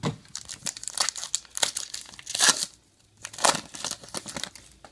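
Foil wrapper of a Topps Star Wars trading-card pack crinkling and being torn open: a run of crackling rustles, loudest about two and a half seconds in, dying away near the end.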